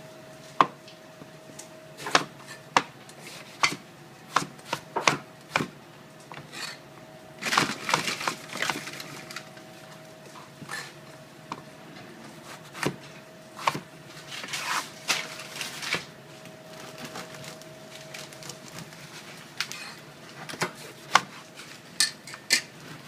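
Kitchen knife cutting eggplant on a cutting board: irregular sharp knocks of the blade hitting the board, with two stretches of scraping and rustling about a third and two thirds of the way through as the pieces are pushed about.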